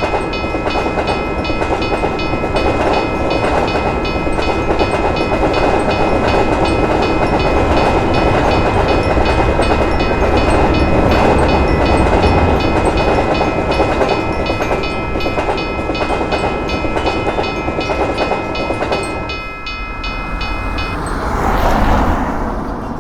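Railroad crossing bell ringing in rapid, even strikes while a train rumbles past. The bell stops near the end as the train noise swells briefly and then fades.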